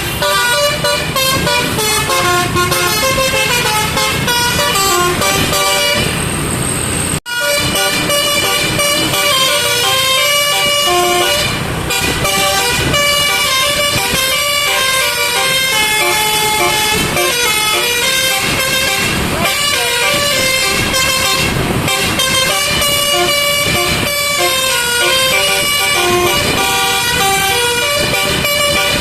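Telolet basuri musical air horn on a truck, its trumpets blowing a loud, quick tune of changing notes; the sound breaks off for an instant about seven seconds in, then the tune carries on.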